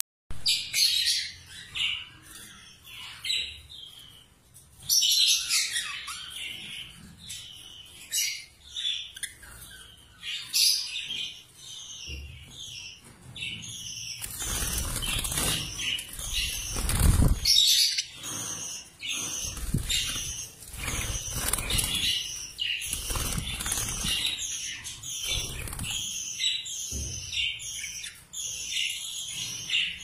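A flock of budgerigars chattering: many fast, overlapping chirps and warbles. In the second half there are some low thumping and rustling noises, the loudest of them about halfway through.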